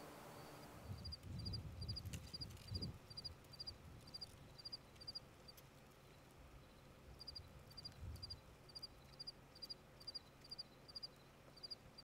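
Cricket chirping steadily, about three short chirps a second, each chirp a quick cluster of pulses, with a brief pause a little past the middle before it resumes. The chirping is faint, and low rumbling gusts come in the first few seconds and again about eight seconds in.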